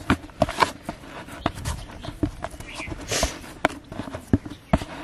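Hand kneading and pressing crumbly bait dough against the bottom of a plastic basin: irregular knocks and taps on the plastic, with a few short scraping sounds.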